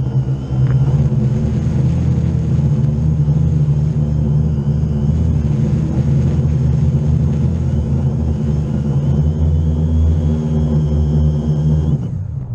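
Quadcopter drone's electric motors and propellers humming steadily, heard through the drone's onboard camera. The hum drops away sharply about twelve seconds in as the motors spool down.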